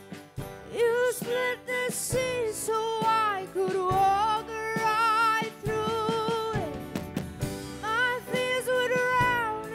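Live church worship band: singers holding long notes with vibrato over guitars, drums and keyboard.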